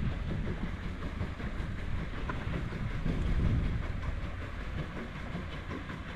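Wind buffeting the microphone: an uneven low rumble that swells a little about three and a half seconds in, over a steady outdoor hiss.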